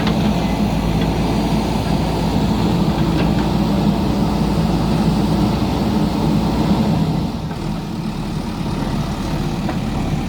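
JCB backhoe loader's diesel engine running steadily, a little quieter from about seven seconds in.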